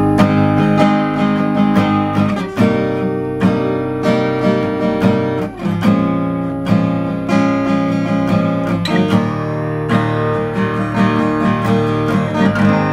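Steel-string acoustic guitar playing a run of barre chords, strummed and picked, each chord ringing on into the next. The strings have not yet been cleaned of grime, which the player says leaves the tone dull.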